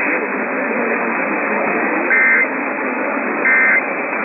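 Three short bursts of Emergency Alert System digital data tones (the warbling SAME code), about a second and a half apart, cutting through a hissy, narrow-band radio signal with faint speech beneath it.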